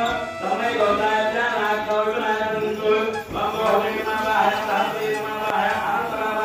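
Hindu devotional chanting: voices intoning a sustained chant with long held notes.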